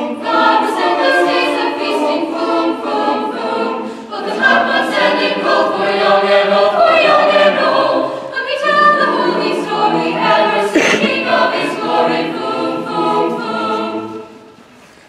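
Mixed-voice a cappella choir singing in close harmony, ending the song with a final chord that cuts off about a second before the end.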